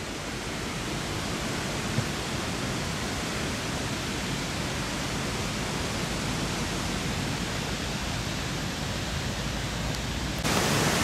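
Steady rush of water pouring over a river dam's spillway. About ten seconds in it becomes suddenly louder and brighter.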